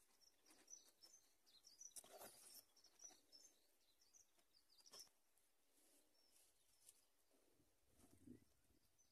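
Near silence: faint outdoor ambience with a few faint high chirps and a few soft ticks.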